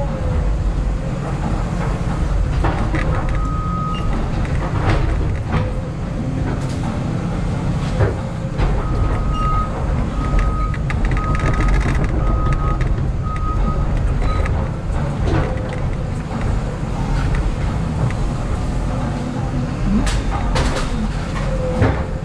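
Cat excavator's diesel engine running steadily under load, heard from inside the cab, as the hydraulic arm works, with cracks of breaking wood, strongest near the end. A short run of beeps at one pitch, about two a second, comes around four seconds in and again from about nine to fourteen seconds in.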